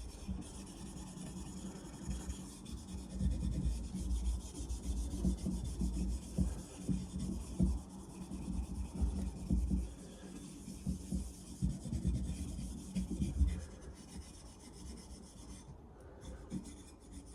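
Rust eraser rubbed back and forth over a carbon-steel blade, scrubbing off surface rust: irregular rasping strokes, strongest from about three seconds in until near the end, then fainter.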